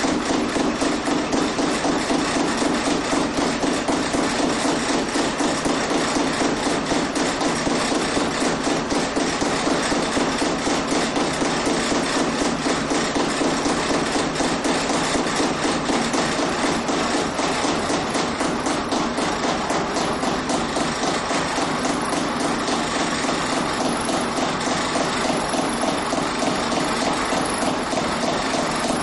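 Homemade gravity-lever and flywheel machine running: a rapid, steady, rhythmic mechanical clatter of knocks over a steady hum.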